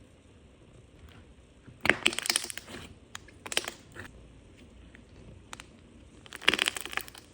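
Crunchy slime being pressed and squished by hand, giving bursts of dense crackling: a long one about two seconds in, a short one a moment later, and another near the end.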